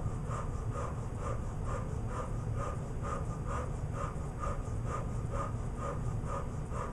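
Rapid rhythmic breathing, about two forceful breaths a second: Kundalini breath of fire pumped through an O-shaped mouth.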